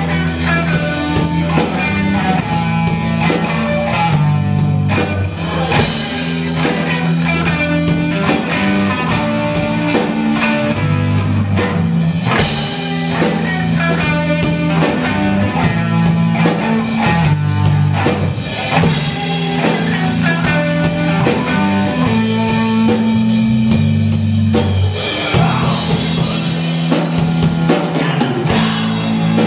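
Live indie rock band, an electric guitar, an electric bass and a drum kit, playing loud with a steady driving beat.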